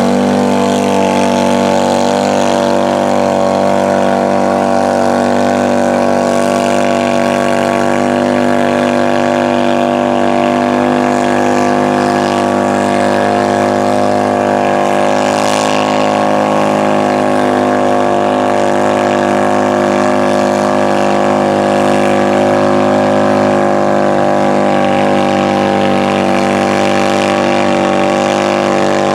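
Polaris Ranger side-by-side's engine running at steady, unbroken revs while its tall mud tires churn through deep mud and water.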